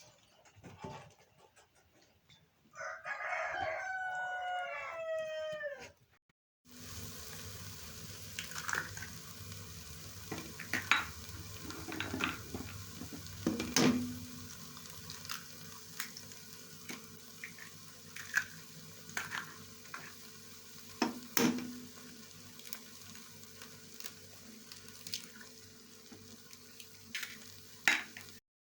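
A rooster crows once, a call of about three seconds whose pitch falls at the end. After a cut, food sizzles steadily in a pan, with scattered clicks and knocks of a utensil stirring against the pan, two of them louder about halfway through and near three-quarters of the way through.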